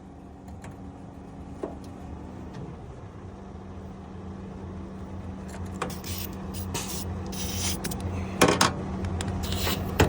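Short hissing blasts from a compressed-air blowgun, clearing oil out of the hydraulic tank's bolt holes, with the strongest blast about eight and a half seconds in. Under them an engine or compressor hums steadily and slowly grows louder.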